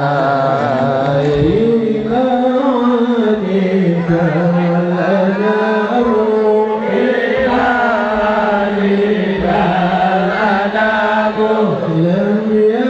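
A single voice chanting in long held notes that waver and slide from pitch to pitch, without breaks.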